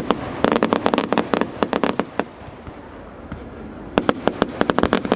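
Fireworks going off in rapid runs of sharp cracks, several a second: one run in the first two seconds, a short lull, then another from about four seconds in.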